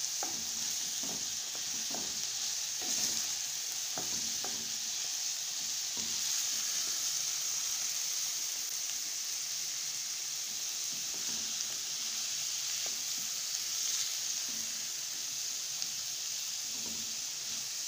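Diced zucchini, onion and baby corn frying in oil in a pan, stirred with a wooden spatula: a steady sizzle with light taps and scrapes of the spatula, most of them in the first few seconds.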